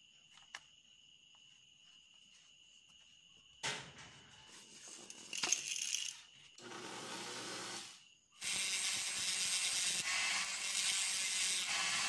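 Crickets chirping steadily at first; about four seconds in, an Ingco mini rotary grinder driving a flexible shaft with a small cutting disc starts and runs unevenly, drops out briefly a little after eight seconds, then runs on with a loud, steady whirr.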